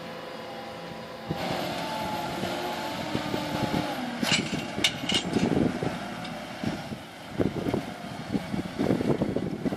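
Fendt 826 Vario tractor's six-cylinder diesel engine running steadily under load while pulling a Lemken EuroDiamant reversible plough. It grows louder about a second in, and a few sharp clanks come about four to five seconds in.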